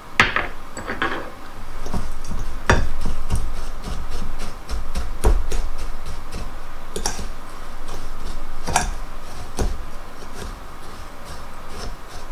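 A metal fork stirring dry crushed graham cracker crumbs in a glass bowl: the crumbs scrape and rustle, and the fork clinks and taps against the glass at irregular moments.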